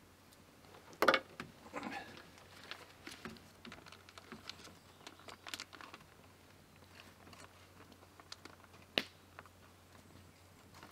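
Plastic bag crinkling and small clicks of things being handled, faint, with a sharp knock about a second in and another sharp click near the end.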